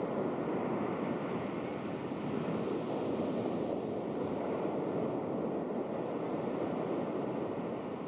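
Steady rushing noise of ocean surf on a beach, mixed with wind on the camcorder microphone.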